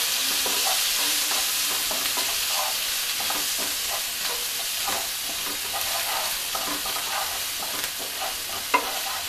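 Ginger-chilli paste, curry leaves and spices sizzling in hot oil in a nonstick frying pan while a wooden spatula stirs and scrapes through them; the sizzle eases slightly over the seconds, with a light tap of the spatula near the end.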